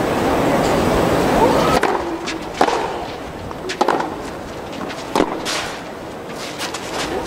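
Tennis rally: four sharp racket-on-ball hits, roughly a second and a half apart, after a steady background hiss that cuts off about two seconds in.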